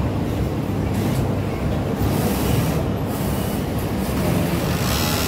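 Industrial sewing machines running on a garment factory floor: a steady, dense mechanical rumble and hiss, with a brief louder hiss near the end.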